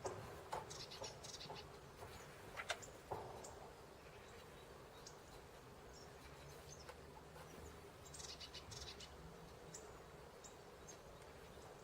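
Faint chirps of small birds, in short high clusters about a second in and again near the end, with a few sharp taps a little under three seconds in.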